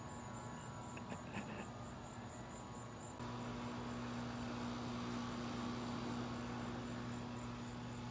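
Steady low hum with a faint hiss behind it, growing louder about three seconds in. There are a couple of faint ticks about a second in.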